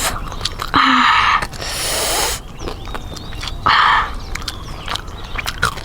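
Crunchy biting and chewing of deep-fried chicken: three loud crunching bursts with short clicks between them. Faint bird chirps sound in the background.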